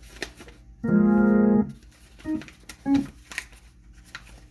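Hammond organ played through a Leslie speaker cabinet: a chord held for under a second about a second in, then two short notes, with scattered clicks in between.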